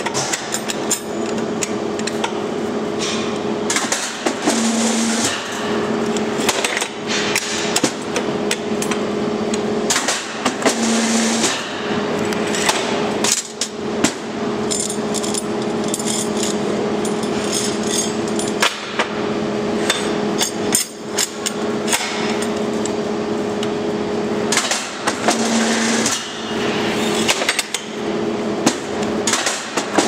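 Rotary rebar bending machine running with a steady hum that breaks off briefly now and then, while ribbed steel reinforcing bars are bent on its turntable. Frequent sharp metallic clanks and knocks of the steel bars against the machine's pins and table.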